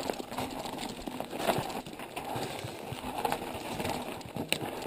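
Mountain bike rolling down a rocky dirt trail: tyres crunching over stones and gravel, with irregular knocks and rattles from the bike.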